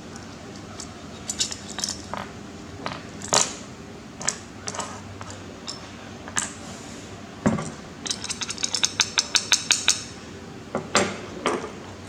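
Small hard parts clinking, tapping and knocking as they are handled: scattered clicks, a dull thump about halfway through, then a quick run of about a dozen sharp clicks, roughly six a second, before a last couple of knocks.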